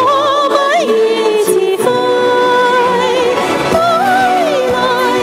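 A woman singing a slow song with vibrato into a handheld microphone over backing music, holding one long steady note about two seconds in.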